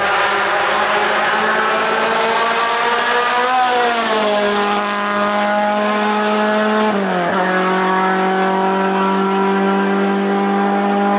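Renault Clio 2 RS race car's four-cylinder engine at full throttle as the car comes through a bend and pulls away. The engine note falls as the car passes, then drops sharply again about seven seconds in and holds steady.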